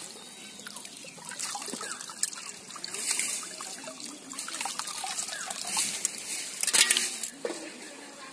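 Pond water sloshing, trickling and dripping as a woven basket is dipped and lifted through shallow, weedy water, with a louder splash about seven seconds in.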